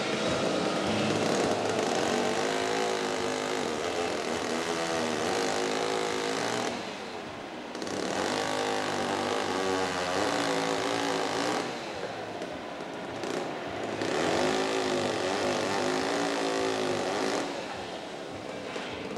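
Electric-driven sawmill machinery in a pallet mill running loudly as wood is fed through. The saw's pitch wavers and sags under the load of each cut, easing off briefly between pieces about a third of the way in, in the middle and near the end.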